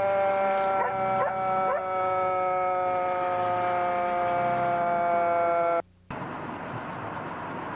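The fire engine's siren holds a steady, many-pitched wail that sags slowly in pitch, with three short rising chirps about a second in. About six seconds in it breaks off for a moment, and a steady rumbling engine noise follows.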